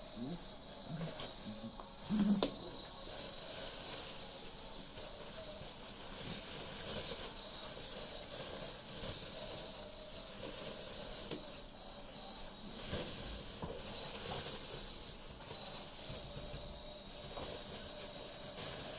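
Steady hiss with faint scuffling and light taps of Australian Shepherd puppies playing on a hard floor, and one brief louder sound about two seconds in.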